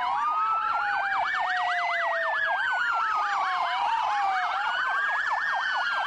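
Several police car sirens sounding together. A fast yelp warbles up and down several times a second, over slower wails that rise and fall over a couple of seconds.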